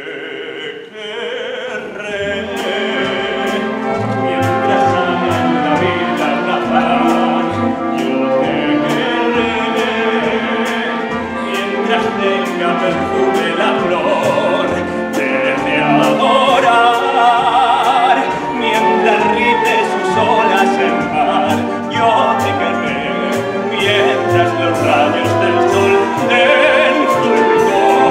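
A man singing a romantic theatre song in operatic style with orchestral accompaniment, swelling from soft to full over the first few seconds. A steady beat of light percussion ticks enters about two seconds in.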